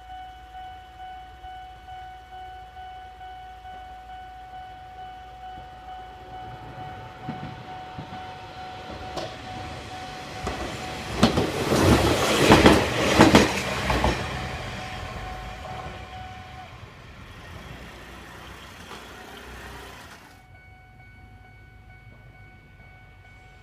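Japanese railroad crossing bell ringing in a quick, steady clang, about two strokes a second, as an Eizan Electric Railway train passes over the crossing, its wheels clattering over the rail joints, loudest about halfway through. The bell stops a few seconds after the train has gone by.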